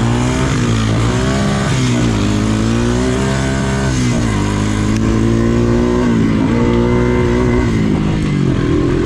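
ATV engine being ridden hard along a trail, revving up and easing off about four times as the rider works the throttle, over a steady low engine drone.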